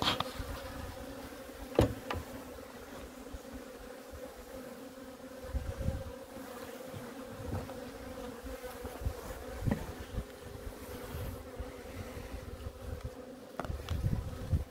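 Ligurian honey bees humming steadily over an open hive, with a sharp click about two seconds in.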